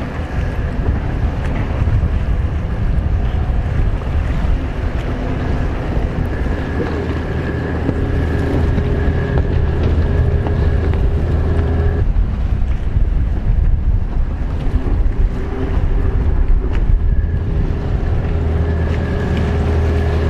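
Racing jet skis running flat out, a steady engine whine over a low rumble and water spray, with wind buffeting the microphone. The engine pitch changes abruptly about twelve seconds in.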